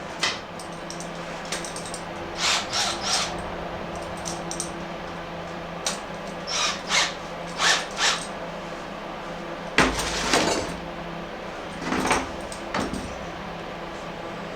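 Metal tools being handled: a series of short clinks and clatters over a steady low hum.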